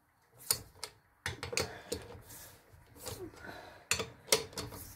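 Lug nuts being snugged onto a car wheel with a hand tool: a string of irregular, sharp metallic clicks and clacks.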